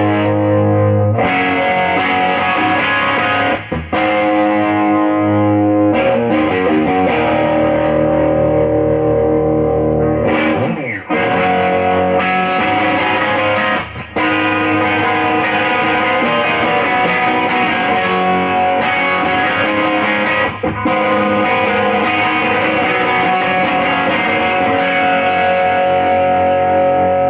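Electric guitar, a 1950s-style Les Paul into a Fender Deluxe amp, played in overdriven chords and riffs through the Audile TOAD pedal's tube-sound Tadpole board, with its clipping switch going from neutral to dark, a setting that makes the clipping asymmetrical. The playing breaks off briefly between phrases a few times.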